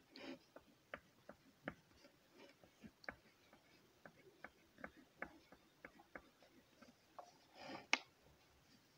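Oil pastel scratching on card paper in short, quick shading strokes: faint ticks a few times a second, irregularly spaced. Near the end comes a short rustle and a sharper click.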